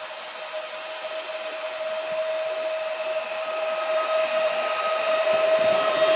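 Pesa Elf electric multiple unit pulling in along the platform, its traction motors giving a steady electric whine over the rumble of the train, growing louder as it approaches.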